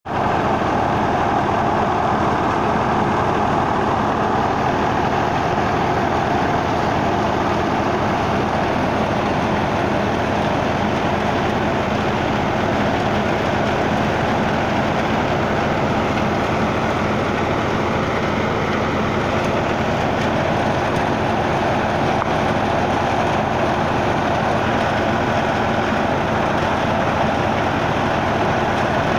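NH Ghazi 65 hp diesel tractor running steadily under load, driving a wheat thresher through its shaft; the thresher drum runs continuously as straw is forked into it, making a loud, unbroken mechanical din.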